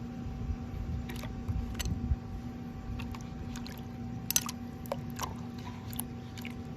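Scattered small clicks and taps, the sharpest about four seconds in, over a steady low hum.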